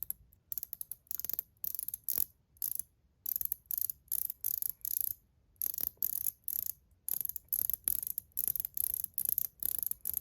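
ACEdc ratchet fidget ring spun in quick flicks, each flick giving a short run of sharp, high-pitched ratcheting clicks as its spring-loaded detent balls snap over the teeth, about two runs a second.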